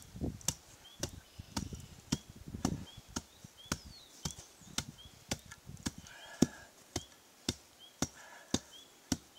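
Hand tamper's steel plate pounding limestone screenings, striking a little under twice a second at an even rhythm, compacting the base by hand.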